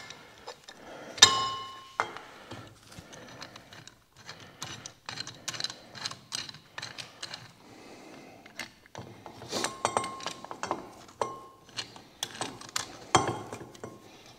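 Steel C-clamp clinking and knocking against a Can-Am Maverick X3 brake caliper and rotor as it is set in place and screwed in to push the caliper pistons back. There are many small metal clicks, a few of them ringing briefly. The sharpest clinks come about a second in and near the end.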